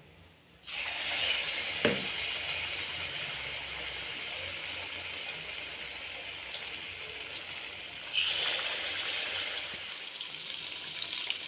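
Batter-coated banana pieces sizzling as they deep-fry in hot oil in a pan. The steady sizzle starts about half a second in and grows louder about eight seconds in.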